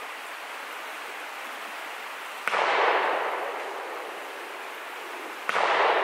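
Two shotgun shots about three seconds apart, each a sudden report trailing off in a long echo.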